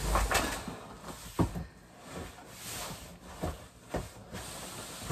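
Rustling and shuffling of items being handled in a large box while unpacking, with a few dull knocks as things are moved or knocked over.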